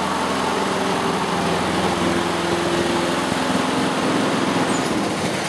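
Walk-behind lawn mower's small four-stroke engine running steadily.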